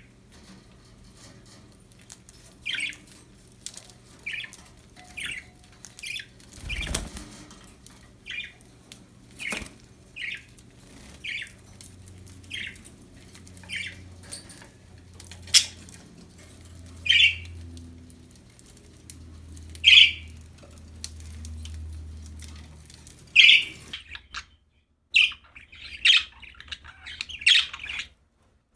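Pet budgies (budgerigars) giving short, separate chirps about once a second, with a brief thump about seven seconds in and a quicker run of chirps near the end.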